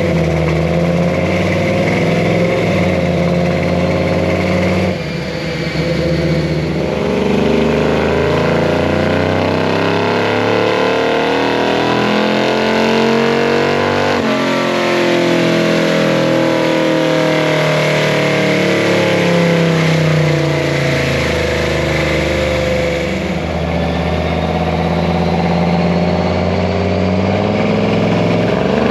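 1982 Chevy C10's 454 big-block V8 making a loud pull on a chassis dyno: engine pitch climbs steadily for about fourteen seconds, falls away after it lets off, then climbs again near the end.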